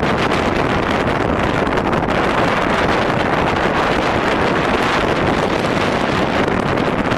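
Strong wind buffeting the microphone: a steady, loud rushing noise.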